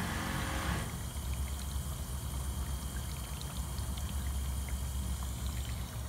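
LG dishwasher running its wash cycle: water rushes and splashes for about the first second, then a steady low hum with water sloshing inside.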